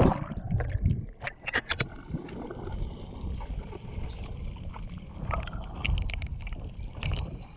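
Water and bubbles heard underwater as a freediver submerges: a rush of bubbles right at the start, then a low, steady rumble of water with scattered clicks and bubble pops.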